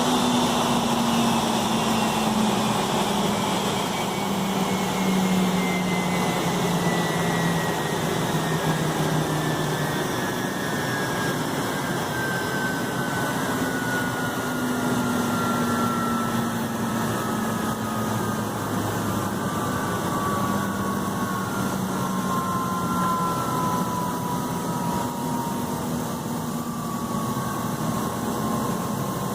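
Airbus A330-223's Pratt & Whitney PW4168A turbofan engines running, a steady jet rush with a high whine that falls slowly and evenly in pitch throughout.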